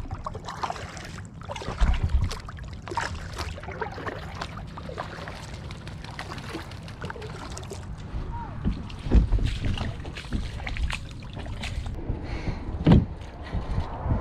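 Plastic sit-on-top kayak being paddled through shallow water, with irregular paddle splashes and drips. After about eight seconds come knocks and a few heavy thumps as the kayak is handled and hauled on a muddy shore.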